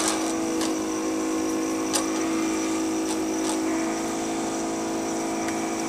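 Benchtop mini wood lathe running at a steady speed: an even motor hum with a constant pitch, with a few faint ticks.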